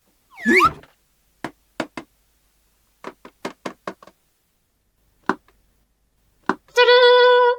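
Sharp clicks and taps of small plastic toy pieces being handled: a few single knocks, then a quick run of about six. A short rising swish comes about half a second in, and near the end a steady, buzzing electronic beep.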